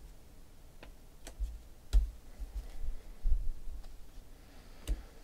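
Sports trading cards being handled and flipped through by hand: a handful of sharp, separate clicks and a few soft thuds as the cards are slid and tapped against each other.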